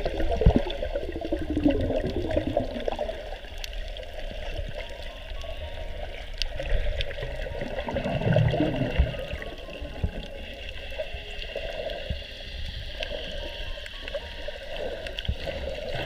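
Muffled underwater sound picked up by a submerged camera: water rushing and gurgling against it, with a steady low rumble, scattered small clicks and a louder low surge about eight seconds in.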